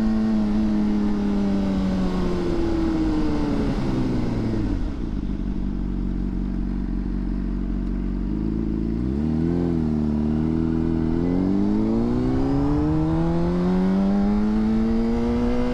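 2009 Honda CBR600RR's inline-four engine with wind on the helmet mic: the engine note falls as the bike slows over the first few seconds and settles low while it rolls through the intersection. A short blip of throttle comes about nine seconds in, then the pitch rises steadily as the bike accelerates away.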